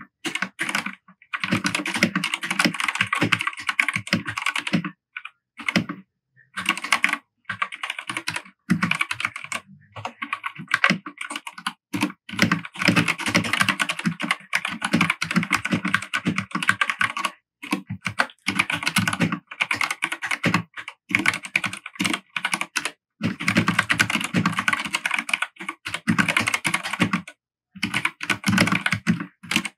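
Fast typing on a Royal Kludge RK100 mechanical keyboard with linear Gateron red switches, a dense run of key clacks in bursts of a few seconds with brief pauses between them.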